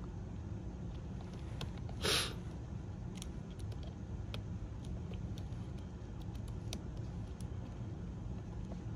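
Faint, scattered clicks and ticks of a pry tool and fingers working on a laptop's internal parts, over a steady low hum. About two seconds in comes one short, louder rustle or hiss.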